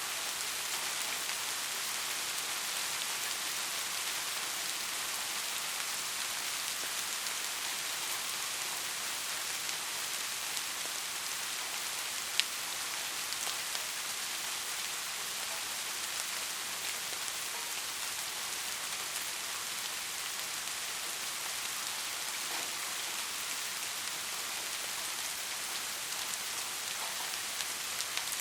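Steady rain falling, an even hiss with a single sharp drop-like tick about halfway through.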